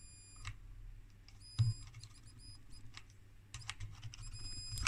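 High-pitched whine of a 1970s transistor megger's oscillator, the circuit the owner thinks generates its test high voltage. It cuts off with a click about half a second in, then comes back in short broken spurts, with clicks and a thump about a second and a half in from the instrument being handled.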